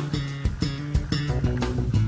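Background music with plucked guitar and bass notes over a steady beat.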